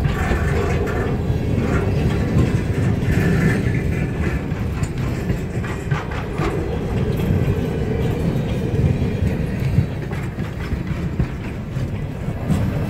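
Freight cars, a covered hopper and then bulkhead flatcars, rolling past close by: a steady rumble of steel wheels on the rails with some clickety-clack over the rail joints.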